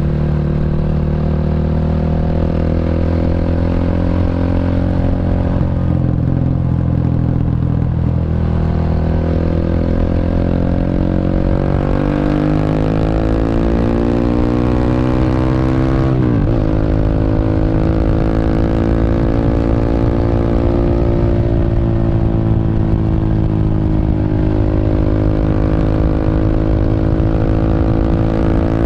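Single-cylinder four-stroke engine of a Honda Revo underbone motorcycle, bored up to 150cc, running through a CLD C7 aftermarket exhaust while riding. Its note climbs steadily for several seconds, dips sharply and briefly about two-thirds of the way through, then holds steady.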